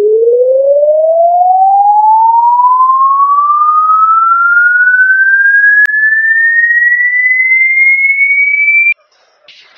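A loud, pure electronic tone sweeping slowly and steadily upward in pitch, from a low hum to a high whistle, with a single click about six seconds in. It cuts off abruptly near the end, leaving faint scattered sounds.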